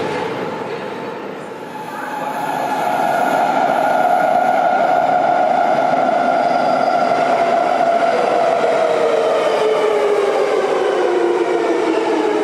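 Class 81 metro train arriving at an underground platform, growing louder from about two seconds in. Its traction motors whine steadily, then the whine falls in pitch over the last few seconds as the train slows.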